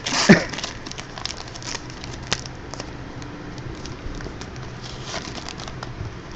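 Crinkling and rustling of trading card pack wrappers and cards being handled, with scattered small clicks and one sharper click a little over two seconds in.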